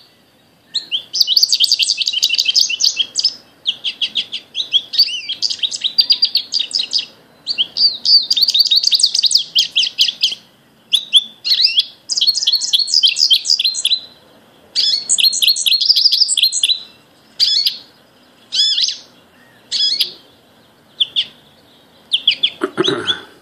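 American goldfinch song, played back from a recording through an iPad's speaker: quick, musical warbles and trills. Long runs come with short breaks at first, then give way to shorter, separate phrases near the end.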